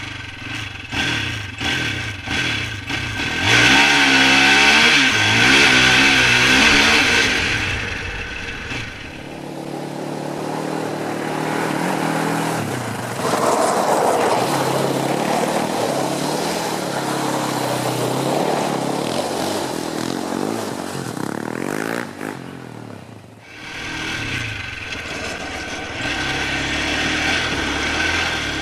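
Polaris Outlaw 525 ATV's KTM single-cylinder four-stroke engine revving hard, its pitch rising and falling over and over as the quad is throttled through donuts and slides.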